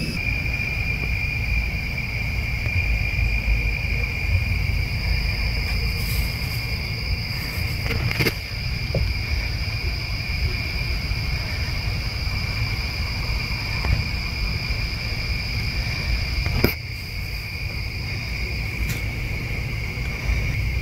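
Insects trilling steadily and high-pitched over a low steady rumble, with a few sharp clicks, the sharpest about three-quarters of the way in.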